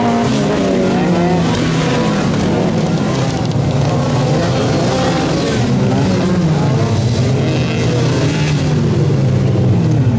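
Several front-wheel-drive autocross cars racing on a dirt track. Their engines overlap, each revving up and dropping back again and again as they accelerate and shift through the corners.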